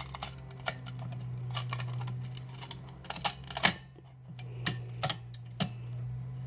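Irregular light clicks and taps, a few louder ones past the middle, over a steady low hum.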